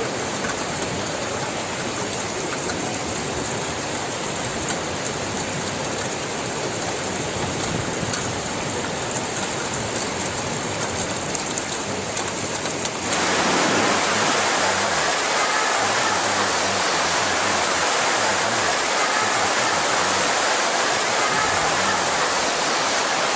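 Steady rush of water with no break, turning louder and hissier about halfway through.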